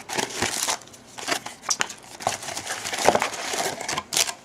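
Plastic wrapping crinkling and tearing in irregular bursts as trading card packs are opened.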